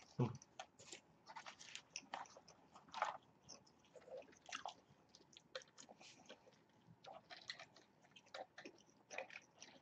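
Faint close-miked chewing and biting of fast food, with scattered small crunches and mouth clicks.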